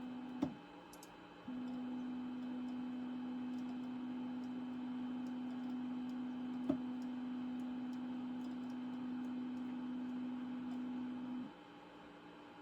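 A steady low hum at one pitch that switches on about a second and a half in and cuts off near the end, with two sharp clicks, one just before the hum starts and one midway through it.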